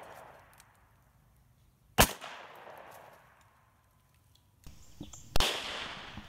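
Two shots from a Colt Official Police revolver, about three and a half seconds apart, each a sharp crack followed by an echo that dies away over about a second.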